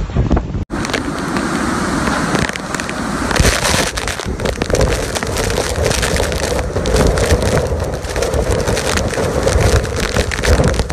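Typhoon wind and heavy rain buffeting the microphone: a dense, crackling rush of noise. It opens with a moment of wind and surf that cuts off suddenly less than a second in.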